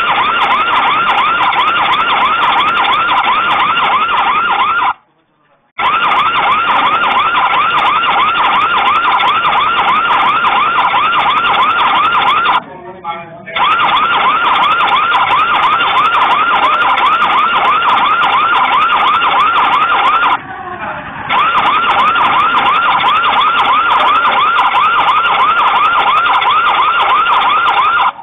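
A loud siren warbling rapidly and continuously, stopping for under a second three times at regular intervals of about seven and a half seconds.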